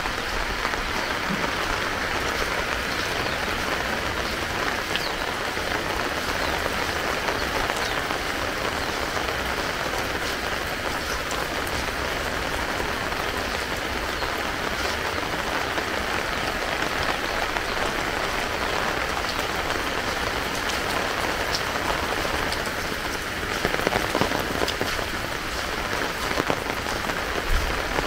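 Heavy rain falling steadily, a dense even hiss, with a brief louder patch near the end.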